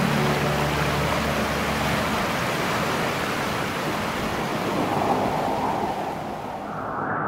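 Steady rushing of a mountain stream over rocks. The last held notes of background music fade out in the first two seconds, and the rush grows fainter and duller near the end.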